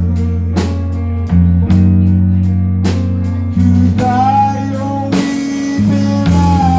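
Live band playing a slow blues: bass notes and a drum kit with guitar, and a held, wavering note from about four seconds in.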